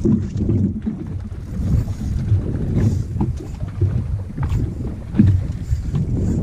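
Wind rumbling and buffeting on the microphone aboard a small boat at sea, with water noise around the hull.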